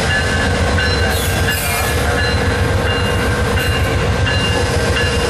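Amtrak passenger train with a GE P42DC Genesis diesel locomotive rolling past: a steady heavy rumble of engine and wheels, with thin high wheel squeal tones coming and going over it. A short high hiss comes about a second in.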